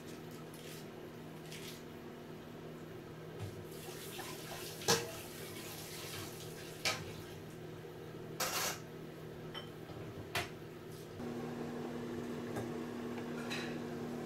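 A steady electrical hum in a small room, with a few scattered sharp knocks and clicks. The loudest knock comes about five seconds in, with others near seven, eight and a half and ten seconds.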